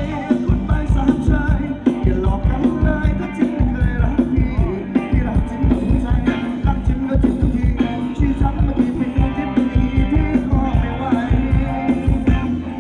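Live band playing Thai ramwong dance music, with a steady thumping drum beat and a singer over it.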